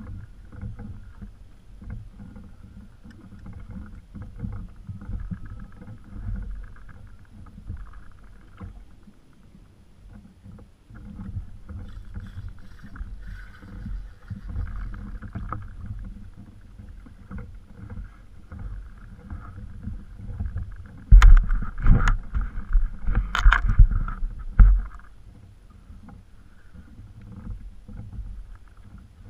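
Plastic fishing kayak on the water: a steady low rumble of water against the hull and air on the microphone. About three-quarters of the way through come a few seconds of loud knocks and thumps.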